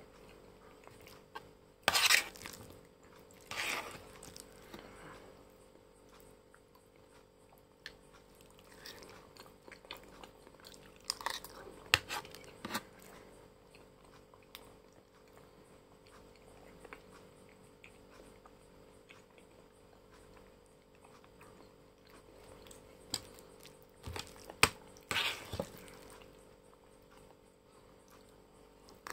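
Close-miked mouth sounds of someone eating noodles: scattered bouts of wet chewing and smacking with a few sharp clicks, loudest about two seconds in and again near the end, over a faint steady hum.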